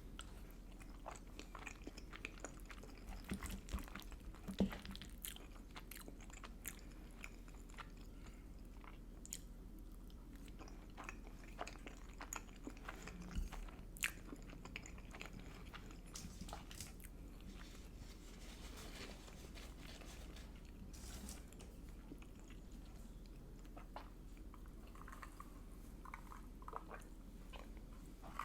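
A person chewing and biting food close to the microphone: a string of small, irregular mouth clicks and smacks, with a few louder bites about four and a half and thirteen seconds in.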